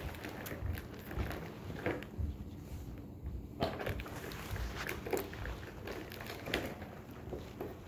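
Scattered small clicks, taps and rustles of hands handling a doll and fitting its small shoes, with a few sharper taps spread through.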